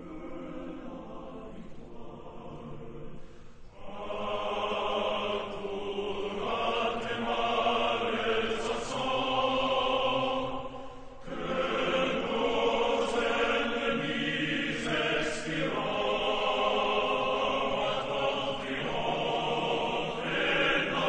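A choir singing slow, sustained chords as background music, quiet at first and growing louder about four seconds in.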